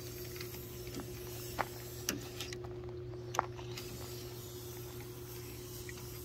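Aerosol can of Krown rust inhibitor hissing as it sprays through an extension straw into a truck tailgate's cavities. The hiss stops for about a second near the middle, with a few sharp clicks. A steady low hum runs underneath.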